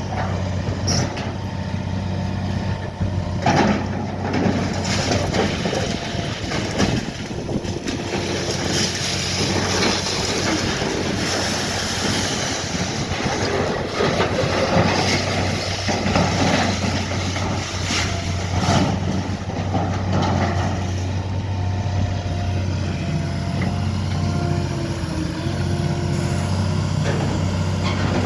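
Heavy demolition machinery working: a large engine runs steadily under repeated crunches, knocks and scrapes of debris being broken and moved.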